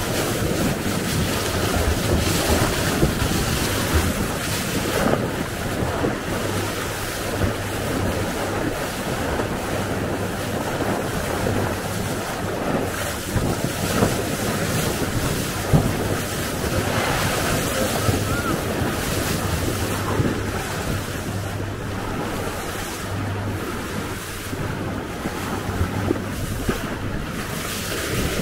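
Wind buffeting the microphone over water rushing and splashing along the hull of a moving boat, with a low steady hum underneath.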